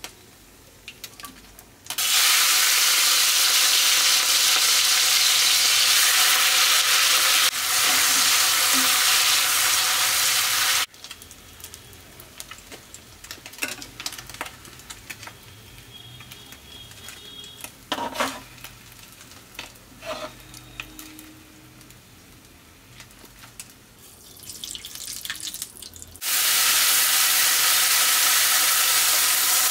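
Prawns frying in hot oil in a kadai: a loud, even sizzle that starts and stops abruptly, then a quieter stretch of a metal spatula scraping and tapping the pan. Near the end a loud sizzle starts again as a pale paste is poured into the hot oil.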